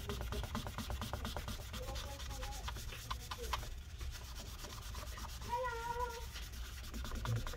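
Paper towel damp with rubbing alcohol rubbing back and forth over the aluminium top case of a MacBook Pro, scrubbing off battery adhesive residue in quick repeated strokes.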